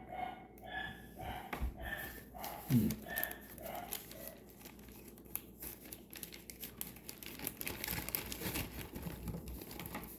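Crinkling of popcorn packaging being handled. For the first few seconds a softer sound repeats about three times a second before the crinkling takes over.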